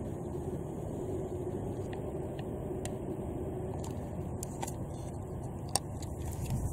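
Outdoor town background of low road-traffic rumble, with a faint steady tone that fades out in the first second or so and a few light clicks.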